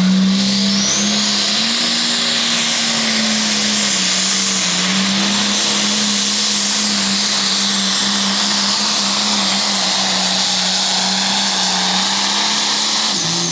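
Turbocharged diesel engine of a limited pro stock pulling tractor at full throttle while it drags the sled, a loud steady high-revving drone. A high whistle rises about a second in, the pitch steps up shortly after, and the engine holds until it begins to drop off at the very end.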